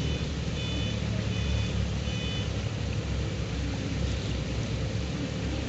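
A steady low rumble, with an electronic beep repeating about every three-quarters of a second that stops about two and a half seconds in.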